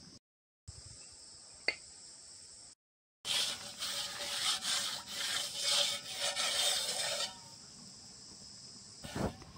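A metal cooking pot being scrubbed out by hand: rough scraping strokes in quick succession from about three seconds in, stopping about four seconds later. Before that, a steady high insect chirring.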